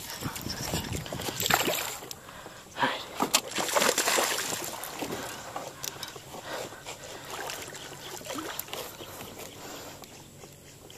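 Water sloshing and splashing beside a small boat as a hooked largemouth bass is reeled in and brought to the surface, mixed with knocks and rustling from handling the rod, reel and boat. The loudest splashy bursts come in the first half, quieter after.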